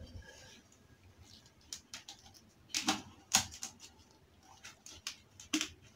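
Scattered light clicks and taps of plastic sheet and rubber gasket pieces being handled and pressed into place on a jet pump housing, with a few louder knocks about three seconds in and near the end.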